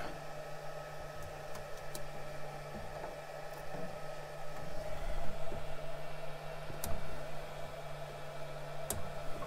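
Steady hum of a Flashforge Guider II 3D printer's fans, with a low tone under an even hiss. A few faint clicks and scrapes come from fingernails picking at the edge of the heated build-plate sticker.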